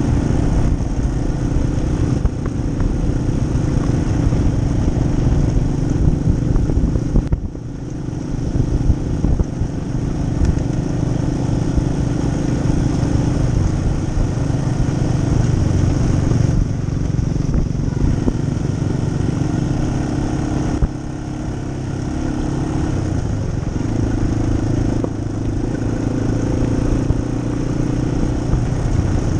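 Yamaha XT250's air-cooled single-cylinder engine running under way while riding a dirt trail. The engine note holds steady, with brief drops in level about seven seconds in and again about twenty-one seconds in.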